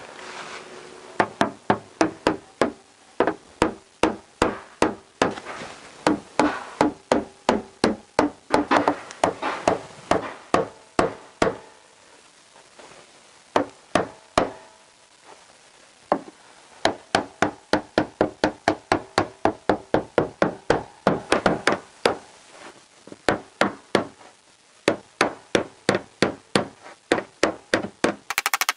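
Hammer striking the steel rear wheel arch of a Vauxhall Insignia, beating out a dent: a steady run of sharp metallic knocks, two to three a second, each ringing briefly in the panel, with a few short pauses.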